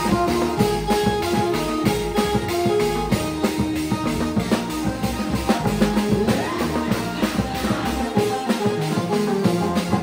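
Background music with a steady drum beat and sustained melodic notes.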